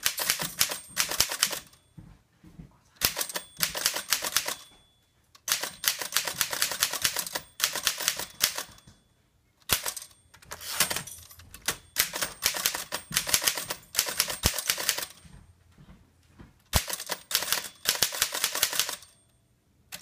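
1930s Underwood portable typewriter being typed on: rapid clacking keystrokes in runs of a few seconds, separated by short pauses.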